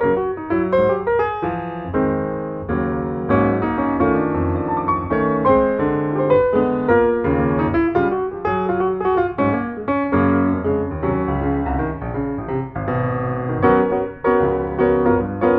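Background piano music: a steady flow of quick notes, with no speech.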